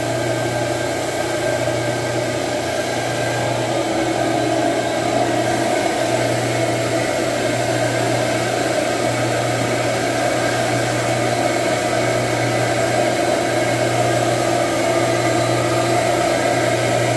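Carpet shampoo extractor's vacuum motor running steadily while its floor wand is worked over the carpet, with a low hum that swells and fades every few seconds.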